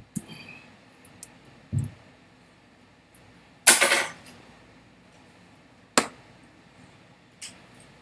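Scattered knocks and slaps from a person's hands and body while signing: a dull thump about two seconds in, a loud short slap near the middle, and sharp clicks near six and seven seconds.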